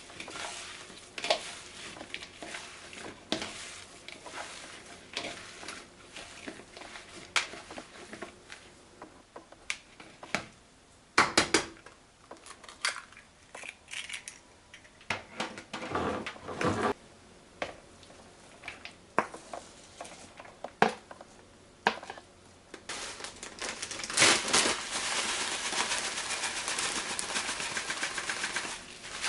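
Kitchen preparation sounds: utensils and dishes clicking and knocking irregularly, with some crinkling. About three quarters of the way through, a steady crackling hiss starts and continues.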